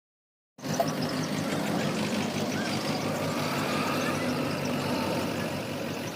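Digital silence for about half a second, then a freshly rebuilt Massey Ferguson 241 tractor's diesel engine cuts in, running steadily.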